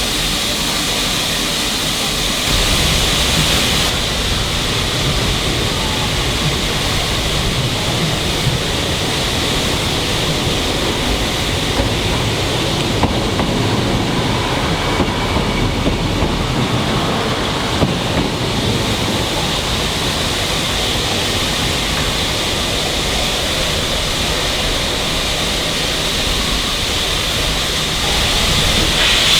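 A train running on the rails: a steady rumble and rush with a few light knocks along the way.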